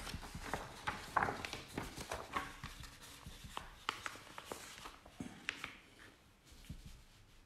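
Sheets of paper rustling and being handled on a desk, with scattered light taps and knocks as a fresh blank sheet is laid down. Busiest in the first couple of seconds, then quieter and sparser.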